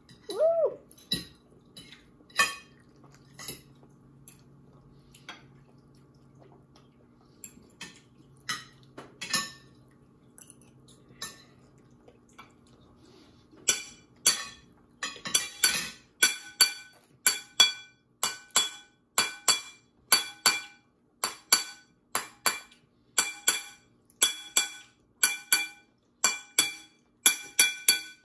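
A metal fork clinking against a bowl: scattered knocks at first, then from about halfway a steady run of ringing clinks, about two a second.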